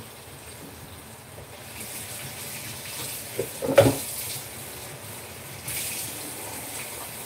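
Water running from a kitchen tap, with a sharp clatter just before four seconds in.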